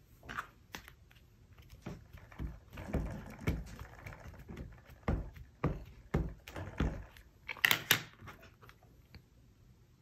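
A Distress ink pad dabbed repeatedly onto a rubber stamp: a series of soft taps about every half second, with a sharper clack near the end.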